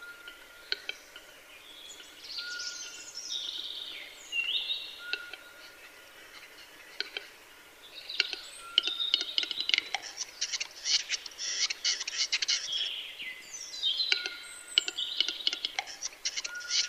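Western capercaillie display song: a run of sharp dry clicks and scraping from about eight seconds in, set among other forest birds singing quick whistled phrases and a short, repeated, level high note.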